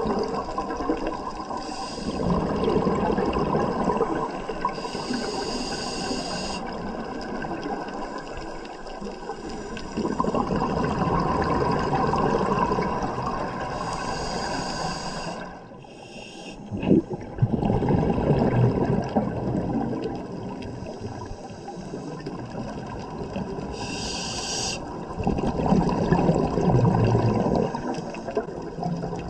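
A scuba diver breathing through a regulator underwater: long stretches of exhaled bubbles, broken by three short hisses of inhalation about every nine to ten seconds.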